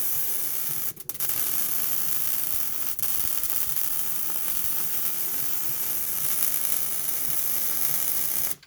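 MIG welder arc crackling steadily while a bead is run on a steel exhaust pipe at the resonator. It breaks off briefly about one and three seconds in, and stops abruptly just before the end.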